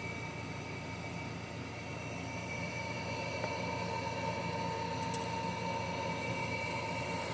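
A small electric motor whining steadily, with a faint click about five seconds in.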